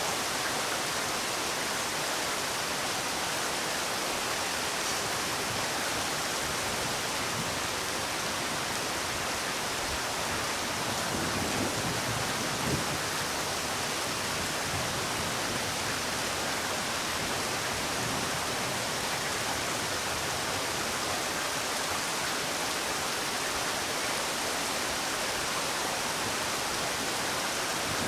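Steady rain falling, an even hiss, with one slightly louder drop or tap about halfway through.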